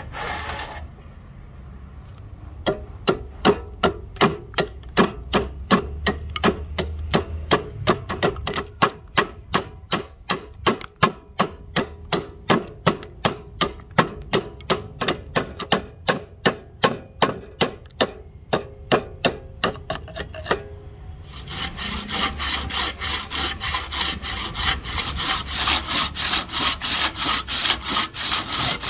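A handsaw cutting rosewood, then a long, even run of sharp wooden knocks, about three a second, as a hand-held blade chops the waste out from between saw kerfs. About 21 seconds in, steady handsaw strokes through rosewood take over.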